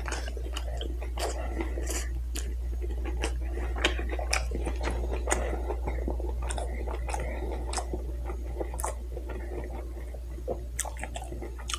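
Close-up chewing of a bratwurst in a soft bun, with wet mouth sounds and many small lip smacks and clicks. A steady low hum runs underneath.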